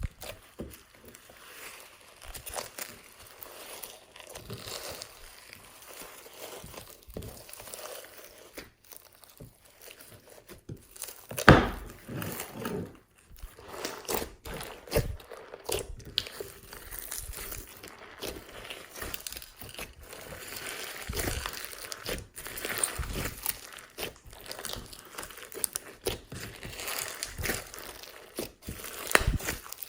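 Glossy slime being squished and kneaded by hand, making irregular small clicks and pops. The loudest pop comes about eleven seconds in.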